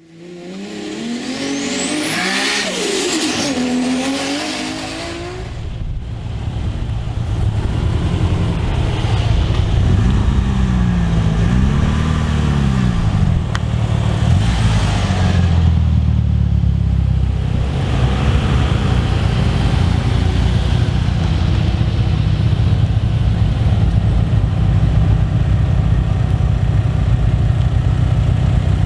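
Car engines revving and accelerating hard, their pitch sweeping up and down, then a loud, steady low engine drone.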